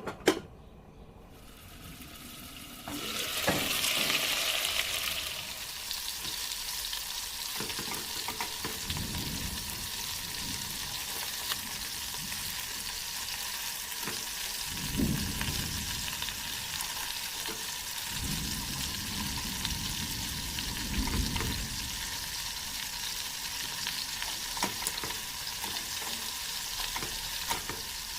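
Chicken pieces sizzling in a pot, frying without added oil, with a steady crackling hiss that starts about three seconds in. Several dull knocks and scrapes come as the pieces are stirred and turned.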